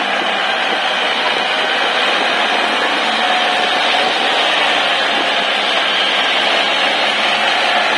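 Kubota L4508 4WD tractor's diesel engine running steadily under load as the tractor drives through deep paddy mud.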